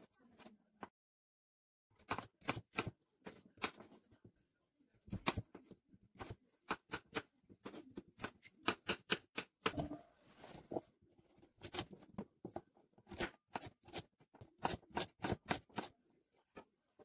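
Kitchen knife chopping raw potato and carrot on a wooden cutting board: irregular sharp taps of the blade going through the vegetables and striking the board. There is a second of dead silence near the start.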